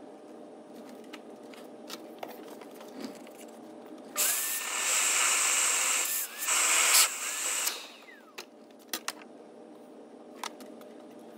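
Vacuum motor running with its hose held down in the engine bay: it starts abruptly, runs loudly for about three and a half seconds with a short dip partway, then winds down with a falling whine. A few light clicks of handling come before and after.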